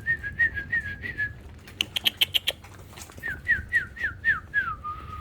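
A series of clear whistled notes: a quick wavering run at the start, short sharp chirps about two seconds in, then six evenly spaced down-slurred whistles ending in one held lower note.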